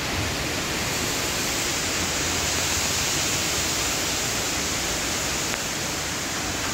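Steady rushing hiss of water from an infinity pool, spilling over its edge into the overflow channel.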